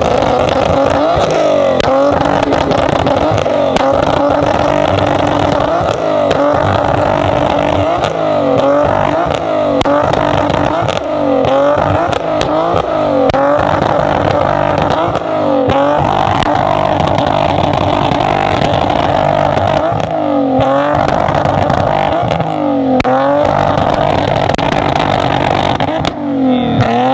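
A loud car engine revved hard again and again, its pitch dipping and climbing every second or two without letting up.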